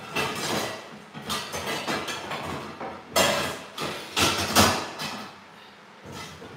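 Pots, pans and lids clattering and knocking as someone rummages through kitchen cupboards for a pot lid. The loudest knocks come about three seconds and four and a half seconds in.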